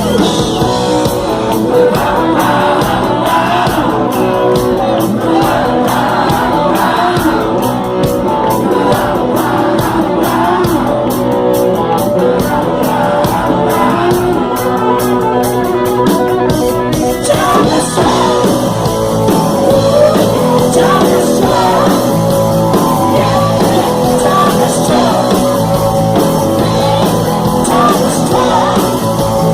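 Rock music: a band with a shouted lead vocal over a steady beat.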